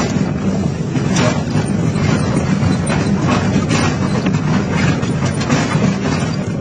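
Excavator engine running under load with a steady hum while its hydraulic jaw attachment tears and crushes scrap sheet metal: continuous irregular crunching, scraping and clanking of metal.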